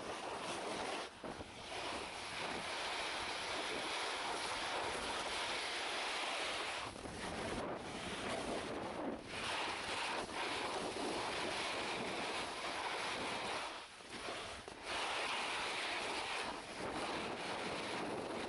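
Snowboard sliding over snow, a steady rushing hiss mixed with wind noise on the microphone, dropping off briefly a few times.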